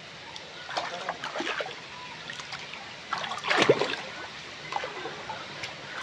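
Waterfall water splashing and trickling into its pool, rising and falling unevenly, with a louder burst about three and a half seconds in.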